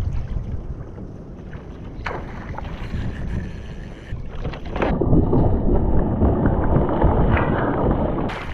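Wind on the microphone and water slapping around a kayak, then from about five seconds in loud splashing as a hooked tuna thrashes at the surface beside the kayak while it is being gaffed.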